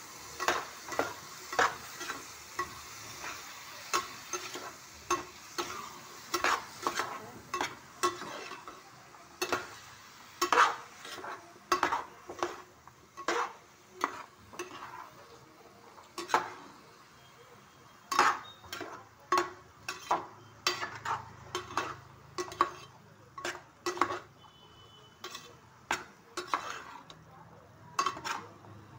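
Spatula stirring diced bottle gourd in a metal pan, scraping and clacking against the pan in an irregular rhythm of about one or two strokes a second. The vegetables sizzle lightly in the hot oil and masala, most in the first several seconds, then fading.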